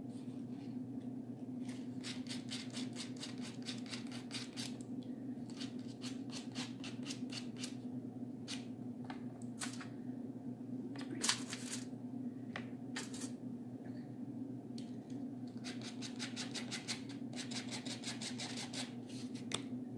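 Sandpaper rubbing on baked polymer clay: spells of rapid, scratchy strokes, with a sharper click about eleven seconds in, over a steady low hum.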